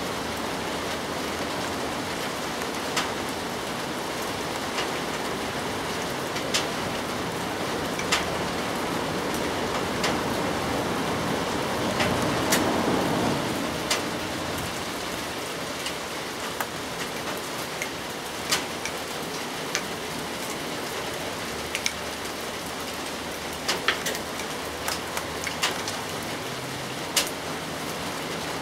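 Steady rain falling, with sharp single drips landing every second or two and a brief louder rush about halfway through.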